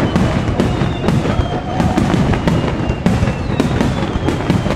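Fireworks finale: aerial shells bursting in rapid succession with deep booms and crackle, overlapping with no gaps, with a few whistles gliding down in pitch.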